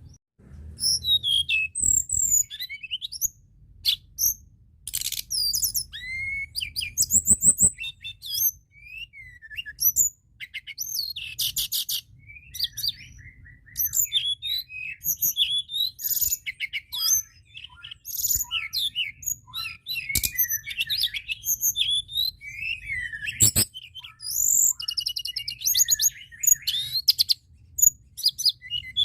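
Tledekan gunung songbird singing a busy, varied run of sharp chirps, slurred whistles and fast rattling trills with hardly a pause. It is a lure recording of the kind played to provoke other birds into singing.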